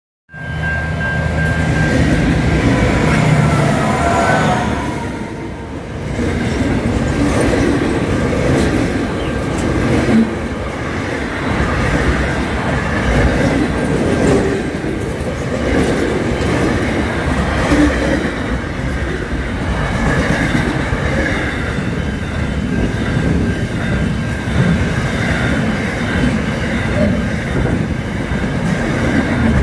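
SCT freight train passing close by. Locomotive engine sound leads for the first few seconds, eases briefly about five seconds in, then gives way to a steady heavy rumble of wagons rolling over the rails, with occasional knocks.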